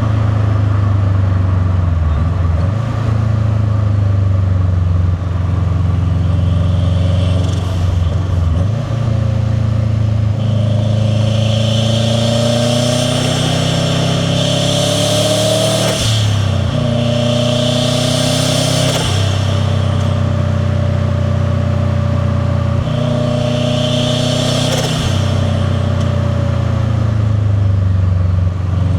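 Turbocharged flat-four of a 2001 Subaru WRX STi (VF48 turbo, catless downpipe, titanium catback) under way: the engine note climbs steadily, then drops sharply at gear changes about halfway and again near the end, with a rush of turbo and intake noise over the exhaust rumble while it pulls.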